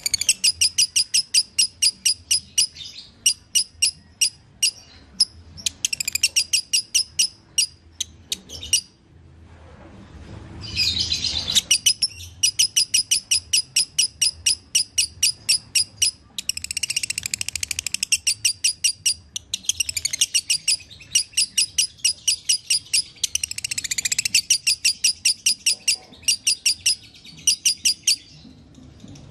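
Fischer's lovebird singing its long chattering song: strings of sharp, high chirps at about six a second, in runs lasting several seconds broken by short pauses.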